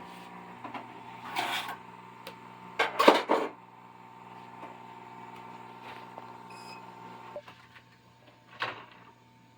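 Electronics repair bench: a steady electrical hum from the bench equipment, with two short bursts of scraping and clatter as tools are handled on the circuit board, the loudest about three seconds in. A brief faint beep comes near the middle, the hum cuts off about seven seconds in, and there is one more short knock near the end.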